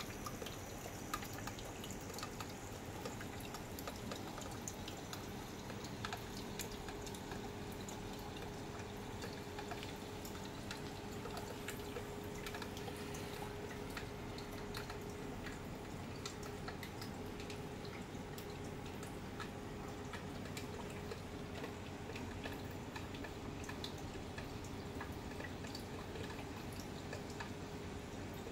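Reef aquarium's water circulation: steady trickling and dripping water, with a faint steady hum.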